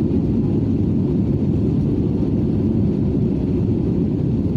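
Steady low drone of engine and airflow noise inside an airplane cabin.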